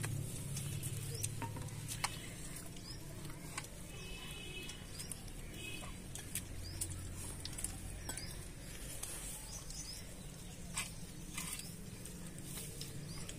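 Scattered light clicks and clinks of steel bowls, plates and spoons during a meal, with small birds chirping now and then over a low steady hum.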